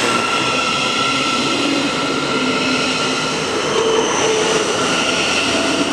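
Thameslink Class 700 Desiro City electric multiple unit pulling out past the platform close by. Its wheels rumble on the rails under the whine of its electric traction equipment, which gives several steady tones over a loud, even noise.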